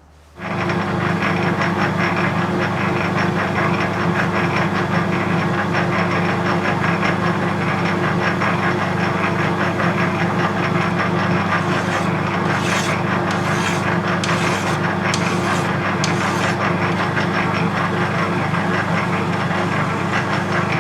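Metal lathe switched on about half a second in and running steadily under cut, a low motor hum with a rasping scrape of the tool on the metal workpiece, and brief scratchy streaks a little past halfway.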